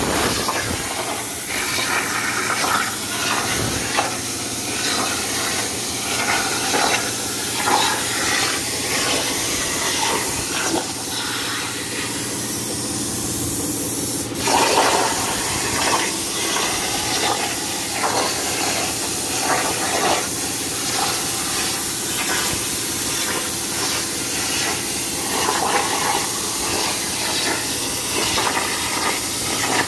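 CNC plasma cutter cutting sheet steel: a steady, loud hissing rush from the plasma arc and its air jet, with a low steady hum beneath.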